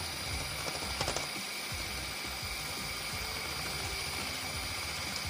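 Small handheld electric whisk running steadily, beating raw eggs in a stainless steel bowl: a constant motor whine over a whirring rattle.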